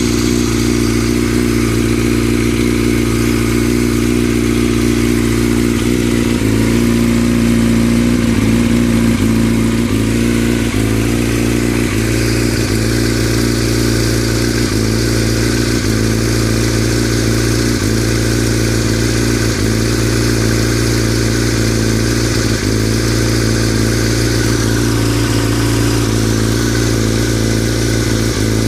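A 2003 Yamaha R6's inline-four engine idling steadily with a rattling noise, which the owner is unsure is normal.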